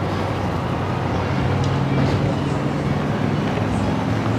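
A motor vehicle's engine running on the street, a steady low hum over general street noise.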